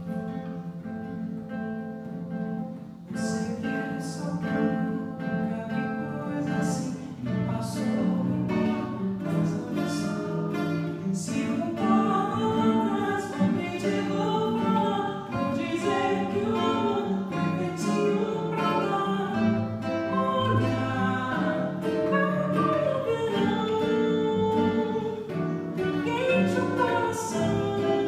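Several acoustic guitars, mostly nylon-string classical, strumming together in a steady rhythm, joined partway through by a woman singing the melody.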